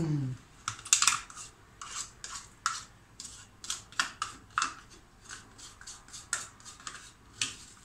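A utensil scraping and clicking against the inside of a small plastic tub of cream cheese as the cheese is scooped out: a string of short, irregular scrapes and taps, two or three a second.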